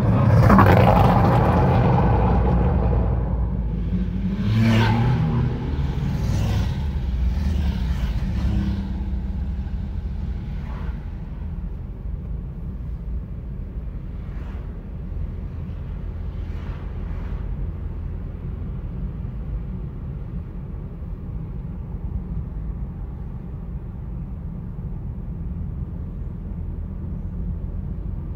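Sports car accelerating hard alongside, its engine loudest in the first two seconds, with three shorter surges about five, six and a half and eight seconds in as it pulls away. After that only the steady low rumble of the filming car's cabin and road noise remains.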